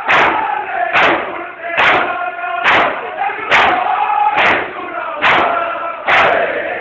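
A crowd of men beating their chests in unison (matam): a sharp slap a little more than once a second, about eight in all. Between the slaps many voices chant a noha together, echoing in a large hall.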